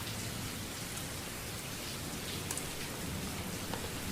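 A rain recording playing as a white-noise app's background track: a steady hiss of rainfall with scattered faint drop ticks.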